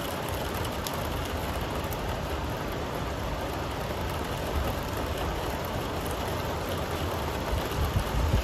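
Steady rain: an even hiss with a low rumble underneath.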